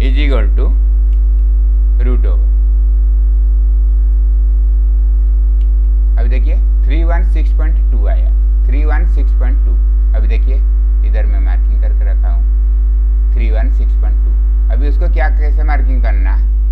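Loud, steady electrical mains hum, a low buzz running under the whole recording. A man's voice speaks indistinctly in short stretches over it.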